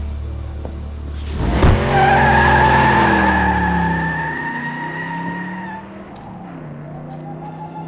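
A car's engine idling low, then revving hard about a second and a half in as the car pulls away with a long tyre squeal. The engine note falls as it drives off.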